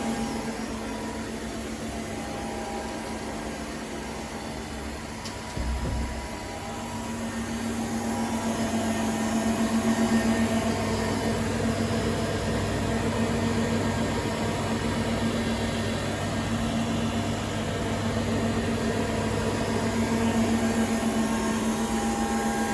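Okuma GA-26T grinder running with a steady machine hum carrying a low, even drone. A brief low thump about five and a half seconds in.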